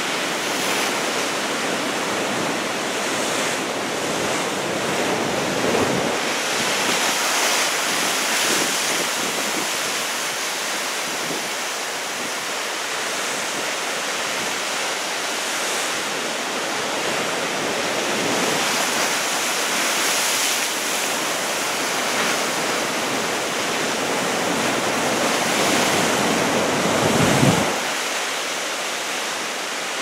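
Heavy typhoon-swell surf breaking and washing ashore as a steady rush that swells and eases every few seconds, with wind buffeting the microphone. A brief, louder low rumble comes about 27 seconds in.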